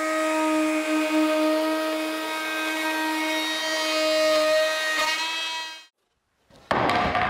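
Festool plunge router running at full speed with a steady, high whine as it cuts a circle through a hardwood tabletop on a circle jig, one quarter-inch-deep pass. It stops abruptly about six seconds in, and near the end comes a short loud burst of scraping handling noise as the cut-off ring of wood is lifted away.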